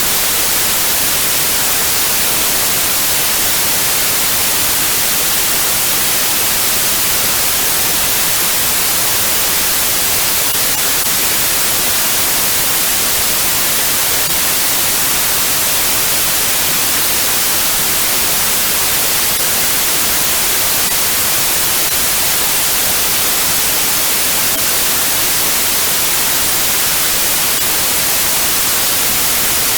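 Steady white noise: an even, unbroken hiss, brightest in the treble, holding one level throughout.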